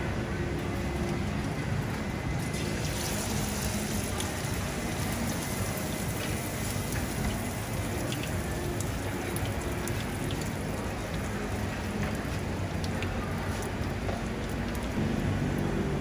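Hot oil sizzling in a cast-iron pan on a gas burner. The sizzle grows louder about two and a half seconds in as egg and seafood go into the oil, with scattered light clicks of a fork against the pan, over a steady low rumble.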